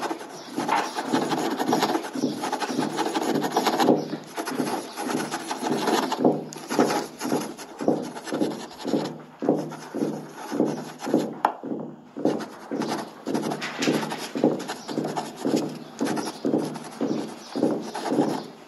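Continuous rasping, rubbing strokes that settle into a regular rhythm of about two strokes a second from about six seconds in, over a steady low hum.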